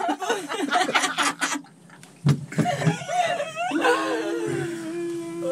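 A group of people laughing and chuckling, with a short lull about two seconds in, then one long drawn-out vocal note held steady near the end.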